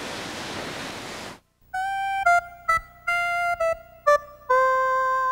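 Rushing stream water for about a second and a half, then it cuts out and a short electric-piano melody plays: a run of quick single notes ending on one long held note.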